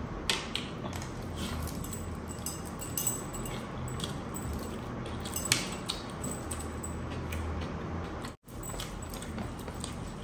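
Close-up eating sounds: a hand squishing and scooping cooked rice, chewing and mouth clicks, with heavy silver rings and bracelets clinking and jangling as the hand moves. The sound cuts out completely for a moment a little over eight seconds in.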